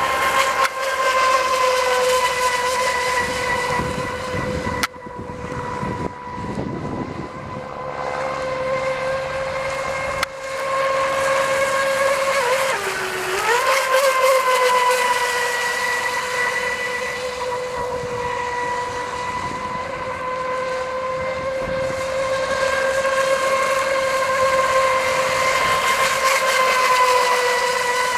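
Carbon-fibre catamaran RC speedboat running flat out, a steady high-pitched whine that dips in pitch briefly about halfway through before coming back up.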